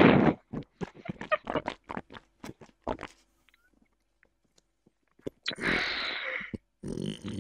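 Mock-ASMR mouth sounds made right up against a microphone: a quick run of wet clicks and smacks. Two loud, breathy rushes of noise come at the very start and again about five and a half seconds in, with a quiet pause between them.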